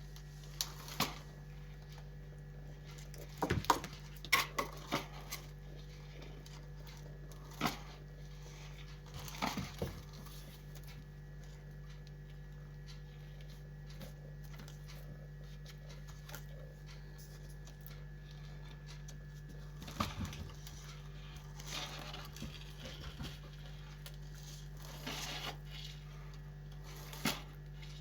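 A pet chewing and crunching pieces of cucumber: scattered short crunches and clicks that come in small clusters with pauses between, over a steady low hum.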